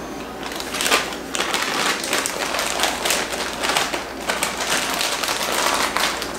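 A clear plastic zip-top bag crinkling and rustling as it is handled. The crackles begin about half a second in and come in uneven bursts.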